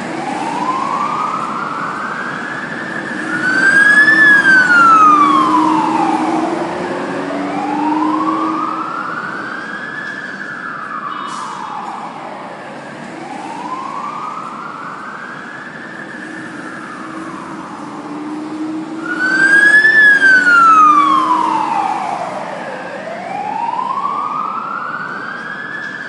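Fire truck siren wailing, its pitch sweeping slowly up and falling back down over a few seconds each cycle, with a low rumble beneath. It swells loudest twice, about four seconds in and again about twenty seconds in.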